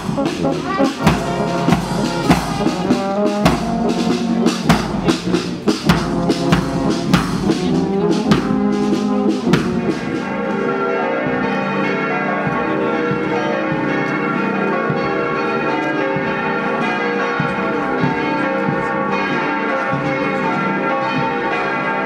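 A marching brass band playing, with regular strokes of a large bass drum. About ten seconds in the band gives way to a steady peal of church bells.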